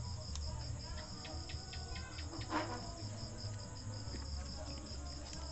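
Crickets trilling steadily in a fast pulsing rhythm over a low hum, with a few light clicks and one short knock about two and a half seconds in.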